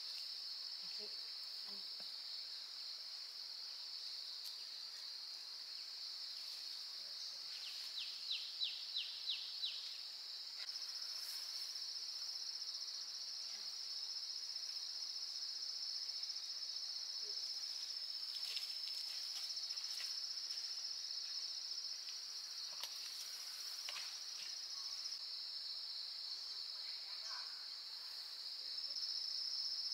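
Steady high-pitched drone of insects chirring, with a quick run of about six chirps around eight seconds in and a few faint knocks.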